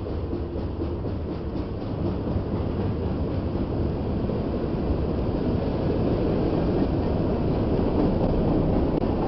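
Freight cars of a mixed freight train rolling past, a steady rumble of steel wheels on the rails that grows a little louder over the second half.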